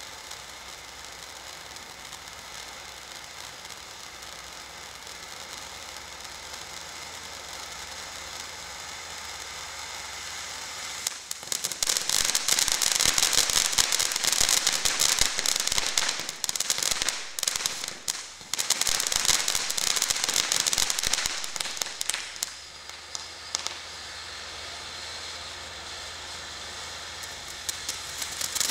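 Black Cat M1 Abrams fountain firework spraying sparks with a steady hiss. About eleven seconds in it breaks into loud, dense crackling for roughly ten seconds, then settles back to the hissing spray.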